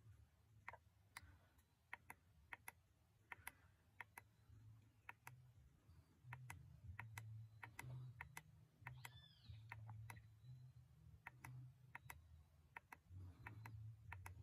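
Faint, sharp clicks at irregular intervals, several close together at times, from a Mini 301 trail camera's buttons being pressed to step through its recorded clips. A short rising-and-falling whistle sounds once about nine seconds in, over a faint low rumble.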